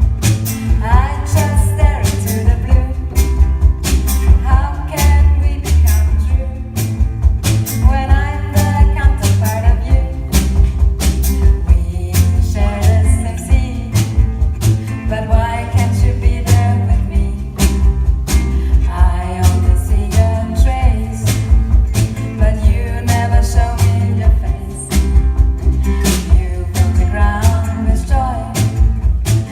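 A band playing a song live: a singing voice over guitar, bass and a steady drumbeat.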